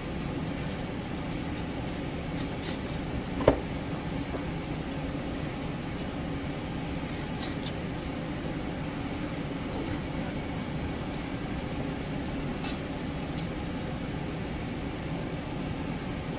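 Light clinks and clicks of metal lids and screw rings being put on glass mason jars, with one sharp, ringing clink about three and a half seconds in. A steady background hum runs underneath.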